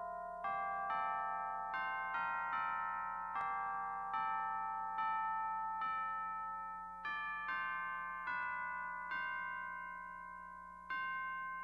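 Slow solo keyboard music in a piano sound, notes and chords struck one after another, about one or two a second, each left to ring and fade.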